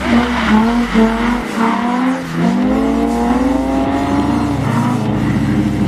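Car engine revving hard while drifting: the revs drop about two seconds in, then climb and hold high.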